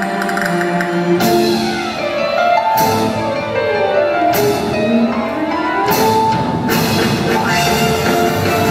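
Music from a lights-and-sounds show: held tones, sharp percussive hits about every second and a half, and a tone that glides down and back up near the middle.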